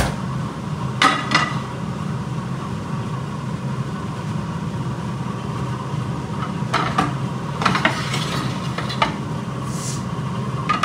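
Clanks and scrapes of a lidded aluminium cooking pot being lifted and set down on a tawa griddle on a gas hob, readying biryani to steam on dum. The clatter comes in short clusters, about a second in, again in the second half, and near the end, over a steady low hum.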